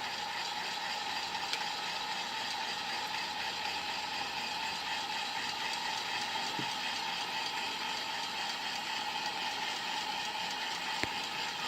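Heat gun running steadily, its fan blowing with a constant whine, warming the phone to soften the screen adhesive. There is a single sharp tick near the end.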